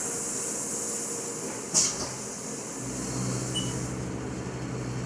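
Haas CNC milling machine running a 10-32 tapping cycle in aluminum: a steady high hiss, a sharp clack a little under two seconds in, then a low steady motor hum that comes in about a second later.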